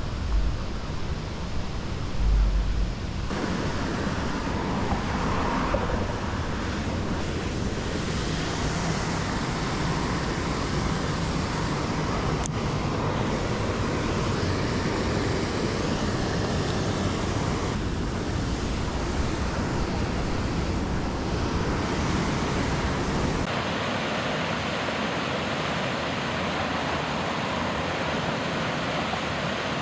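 Steady rushing of a waterfall pouring over a mill dam, with wind buffeting the microphone in the first few seconds. The noise shifts abruptly at several edits.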